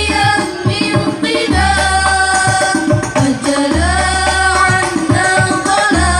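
Girls' voices singing sholawat through microphones, accompanied by a banjari ensemble of hand-beaten terbang frame drums playing a busy rhythm, with a deep low drum boom about every two seconds.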